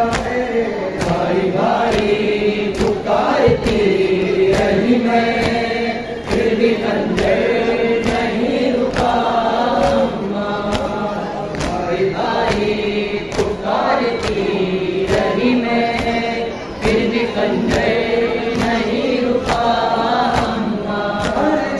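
A Shia noha (mourning lament) is chanted by men's voices, in time with a steady rhythm of hand strikes on the chest (matam).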